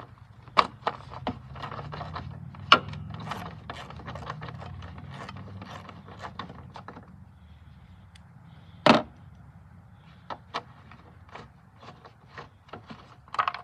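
Hand tool and metal and plastic parts at work loosening the top bolt of a Jeep Liberty headlight assembly: a string of irregular clicks and rubbing, with one louder click about nine seconds in. A low hum sits under the first half.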